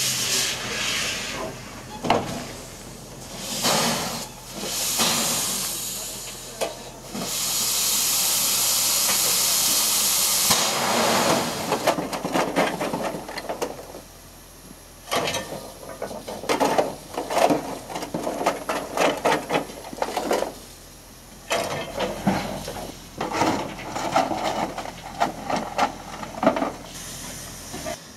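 Steam hissing from a saddle tank steam locomotive in repeated blasts, one held steady for about three seconds. It gives way to a long run of irregular metal clanks and scrapes, typical of a coal shovel working in a steel wheelbarrow.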